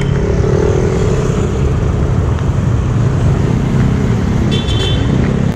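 Road traffic: motor vehicle engine noise over a steady low rumble, with a brief high-pitched squeal near the end.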